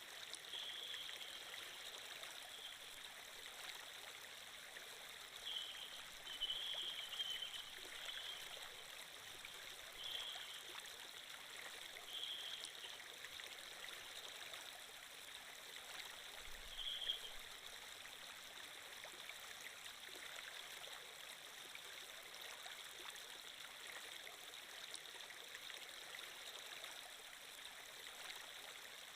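Water-flow sound effect of a running stream: a steady rush and trickle of water, with a few brief louder splashes.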